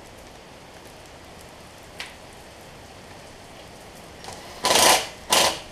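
Steady hiss of rain outside. Near the end, two short loud bursts from a cordless impact driver tightening a bolt on the engine's air-cleaner base.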